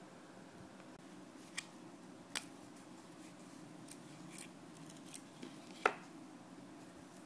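A few light, sharp clicks, the loudest near the end, as a plastic spool of fishing line and small tackle are handled on a tabletop, over a faint steady low hum.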